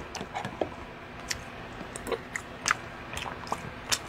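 A man chewing a mouthful of chicken and rice from samgyetang, with a dozen or so short, irregular mouth clicks and smacks.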